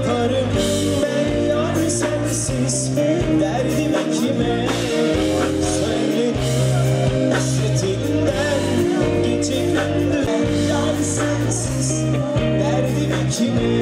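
Live pop band performing: a male vocalist singing into a handheld microphone over electric guitar, keyboards and a bass line, with a steady beat.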